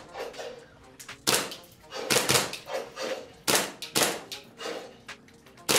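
JAG Arms TTI Sand Viper 2011 Hi-Capa gas blowback airsoft pistol firing about six shots at an uneven pace. Each shot is a sharp report of gas and cycling slide with a short ringing tail.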